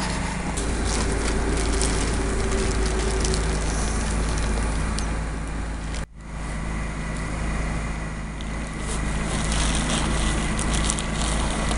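A steady low mechanical drone with a faint steady whine above it and scattered light ticks, broken by a sudden brief dropout about six seconds in.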